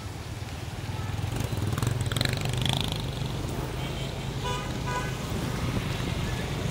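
Motorbike and scooter traffic running steadily on a wet street, with a low engine drone. A vehicle horn gives two short beeps about two-thirds of the way through.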